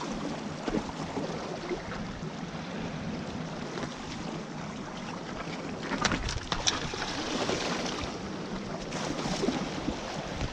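Seawater sloshing and splashing among jetty rocks as someone wades through it, with a few sharper splashes about six seconds in.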